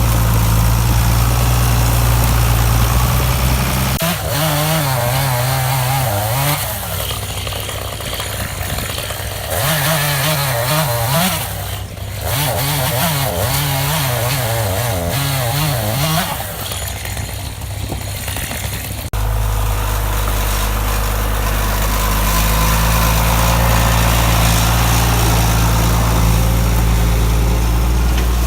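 A tractor engine running steadily. From about four seconds in, a chainsaw runs for about fifteen seconds, its engine speed wavering up and down as it cuts. It stops abruptly and the steady tractor engine sound returns.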